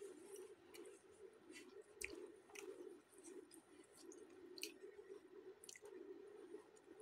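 Faint eating sounds: chewing and wet mouth clicks, with soft squishes as pieces of flatbread are torn and dipped into the food.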